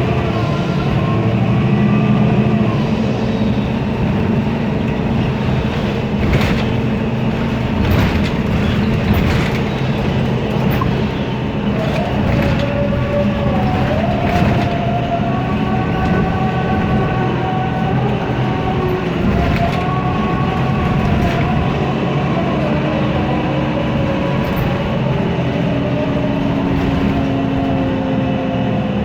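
MAN Lion's City CNG city bus under way: its MAN E2876 natural-gas engine running noisily, with whines that slowly rise and fall as it pulls and changes gear. Body and trim parts rattle and click, most between about six and eleven seconds in.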